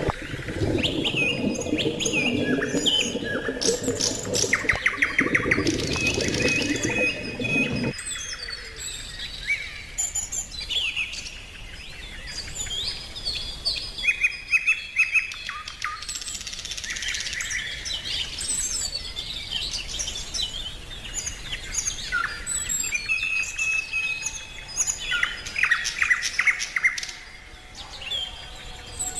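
Wild birds singing and chirping, many short overlapping calls and trills. For the first eight seconds a lower, dense sound runs underneath and then cuts off suddenly.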